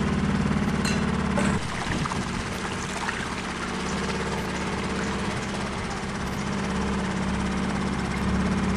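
Boat engine running steadily while the boat travels along a canal. Its note drops a second and a half in and picks up again near the end.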